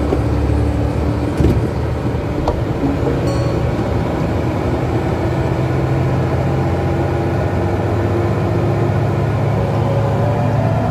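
Steady running noise of a vehicle driving along a road: engine and tyre rumble with a few held low hums.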